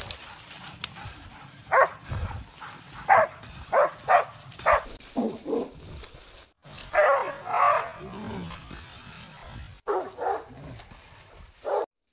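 Hunting dogs barking at a wild boar held at bay: a run of short, sharp barks about half a second to a second apart, then longer rough bouts of barking.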